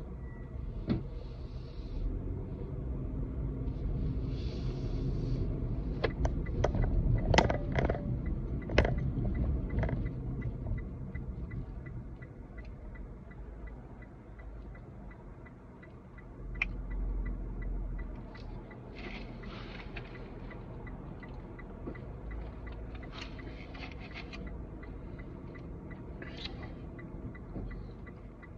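Steady low rumble of a car heard from inside the cabin. A handful of sharp clicks and knocks come between about 6 and 10 seconds in.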